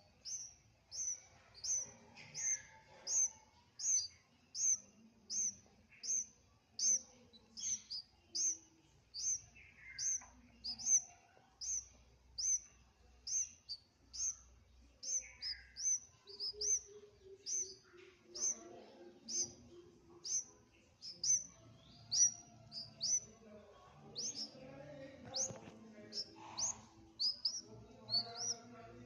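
A baby bird chirping over and over: short, high, downward-sliding cheeps at about one and a half a second, the steady repeated call of a chick.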